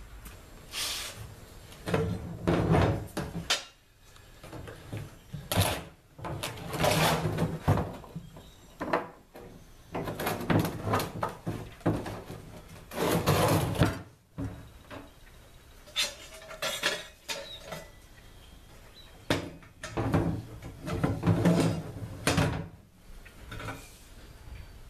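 Wooden 2x4 handle, metal braces and bolts knocking and scraping against an upturned wheelbarrow tub as the wheelbarrow is put back together, in irregular spells of clattering a second or two long with short pauses between.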